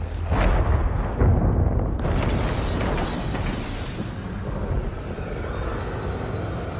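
Film soundtrack of explosions with score music underneath: two heavy booming blasts within the first second and a half, then a dense rumble that slowly dies down.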